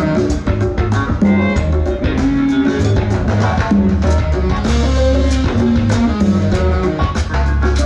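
Live band playing through the stage sound system: guitar over a moving bass line and a drum kit keeping a steady beat.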